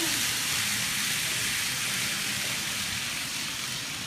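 N-gauge model train running past on the layout's track: a steady whirring hiss that fades slowly as it moves off, mixed with the shop's background noise.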